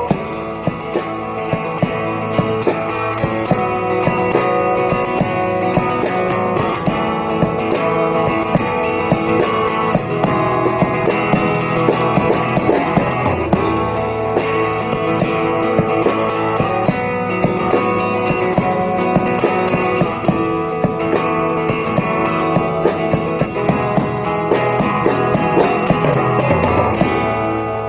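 Live band playing an instrumental passage without singing: guitar over bass and drum kit.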